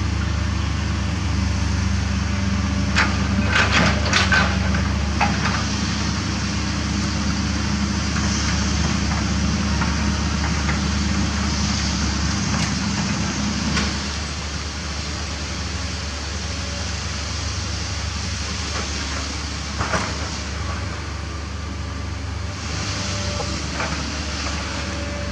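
Kobelco hydraulic excavator's diesel engine running steadily while it digs limestone. A cluster of sharp knocks and clanks from the bucket working the rock comes about three to five seconds in, and a single knock near the end.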